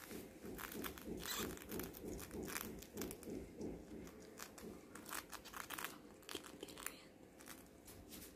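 Young white rats gnawing at a cracker biscuit held in the fingers: irregular small crunching clicks, busiest in the first half.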